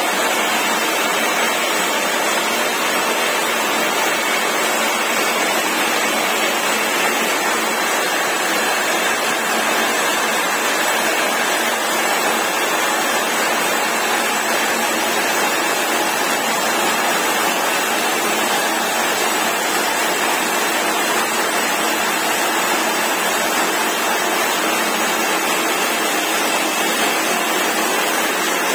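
Hydraulic rock drills of a tunnel drilling jumbo drilling into the rock face: a loud, steady, dense noise without let-up.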